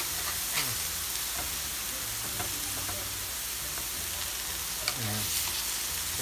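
Chicken burger patties sizzling on a stovetop griddle, with a metal spatula pressing them and clicking against the griddle a few times.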